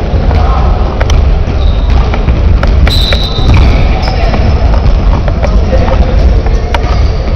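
Gymnasium ambience: voices and calls echoing in a large hall over a heavy low rumble on the microphone, with scattered sharp knocks.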